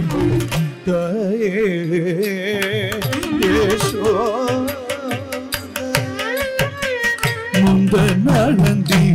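Carnatic music: a melody of sliding, ornamented notes over drum strokes, with the drumming growing denser near the end.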